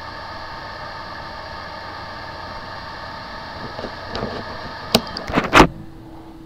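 A 2.5-inch laptop hard drive's steady mechanical hum, with a few steady whine tones over it. Clicks and knocks come in about four seconds in, the loudest near five and a half seconds, and then the hum stops, leaving one low steady tone.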